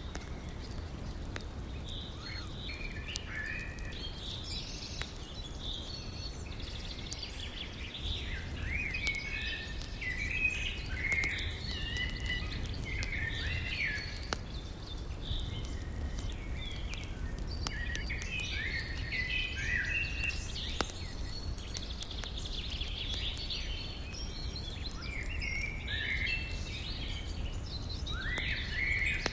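Several birds chirping and singing continuously over the steady low rush of a river, with a few faint crackles from a campfire.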